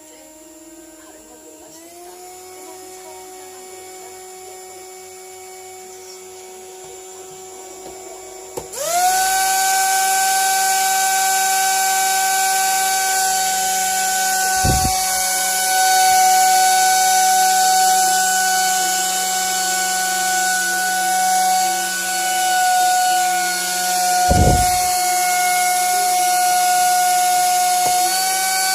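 Handheld fan converted to a 2300KV racing-drone brushless motor, running as an electric whine. It starts faint and low and steps up in speed a couple of times. About nine seconds in it jumps suddenly to a much louder, higher whine with a strong hiss, then holds steady at that speed. Two brief low thumps come later on.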